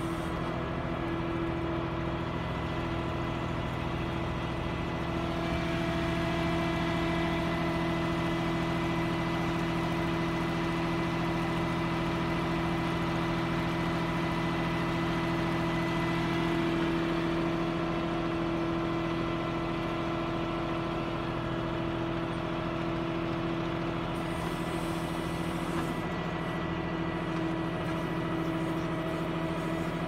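Backhoe loader's diesel engine running steadily under load while its bucket digs soil.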